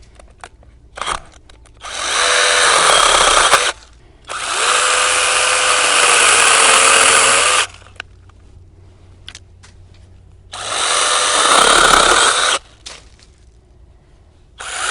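Small brushless battery-powered 6-inch mini chainsaw buzzing in three short bursts of a few seconds each, with another starting near the end. The motor pitch dips and recovers within the bursts as the chain bites into small branches.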